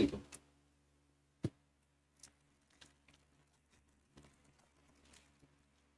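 Handling of trading cards and a foil card pack being opened: one sharp tick about a second and a half in, then faint scattered crinkles and rustles of the wrapper and cards.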